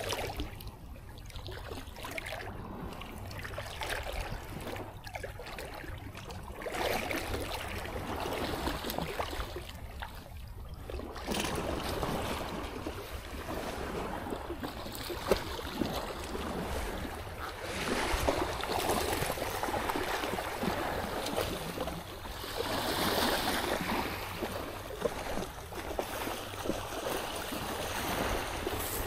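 Surf washing onto the beach, a steady rush that swells and fades every few seconds, with wind rumbling on the microphone.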